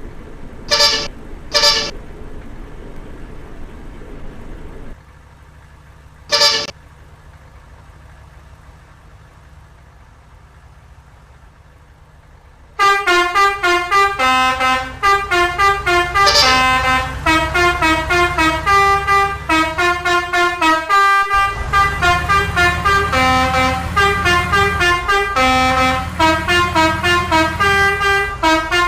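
Telolet multi-tone horn: two short honks about a second in and another at about six and a half seconds. From about thirteen seconds it plays a fast melody of rapid horn notes at many pitches.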